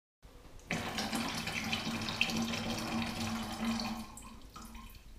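Liquid poured from a small plastic bottle into a wide black vessel that already holds water. A splashing pour starts about half a second in, runs for about three seconds, then dies down to faint trickling.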